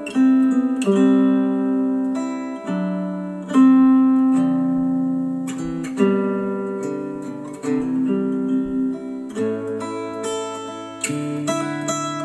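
Acoustic guitar music played back through a pair of Dayton Audio B452 bookshelf speakers: plucked notes that start sharply and ring out one after another.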